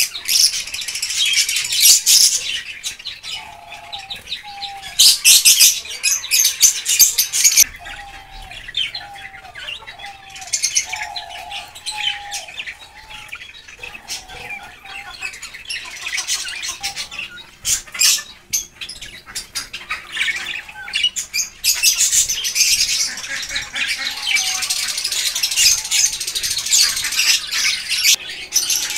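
A crowd of small caged birds chirping and chattering in loud waves, with a short lower call repeated about twice a second between roughly 3 and 13 seconds in.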